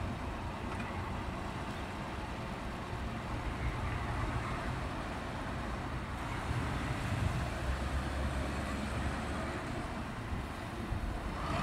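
Road traffic close by: a box van and a car driving past, with engine and tyre noise swelling about four seconds in and easing off near the end, over a steady low rumble.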